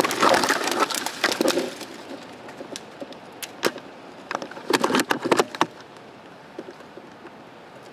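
Dry twigs and brush crackling and snapping in two bursts of quick clicks, one at the start and one about five seconds in, with a few single snaps between them: the sound of someone pushing through dry undergrowth.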